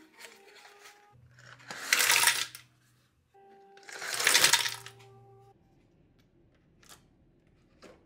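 Metal Nespresso coffee capsules tipped from their cardboard sleeve, clattering into a glass jar in two pours about two seconds apart, over soft background music. A few light clicks near the end.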